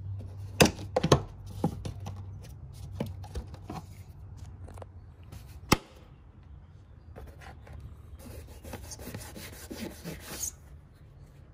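Hands working on the air filter housing in an engine bay: a few sharp clicks and knocks of hard plastic parts in the first half, then about two seconds of rubbing and scuffing near the end, over a low steady hum.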